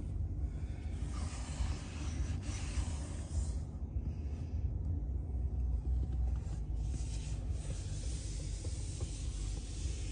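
Steady low rumble and faint hiss inside a pickup truck's cab, with light rubbing and brushing sounds from the phone being handled.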